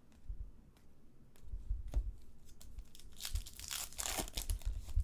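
Foil trading-card pack being torn open: a run of small crinkles and handling thumps, then a longer burst of tearing and crinkling of the wrapper about three seconds in.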